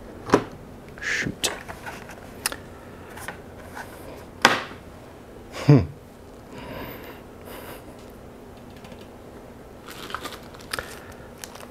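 Scattered light clicks, taps and knocks of hands working parts at a bicycle wheel's hub while fitting a centre-lock disc brake rotor, about half a dozen sharp ones in the first six seconds and fainter fiddling after.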